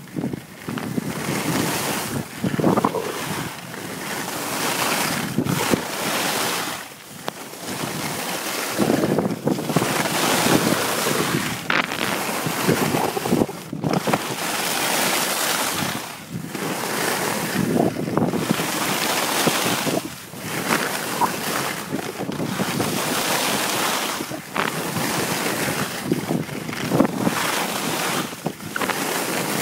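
Skis hissing and scraping over packed snow while skiing downhill, with wind rushing over the phone's microphone. The noise swells and dips every second or two, turn by turn.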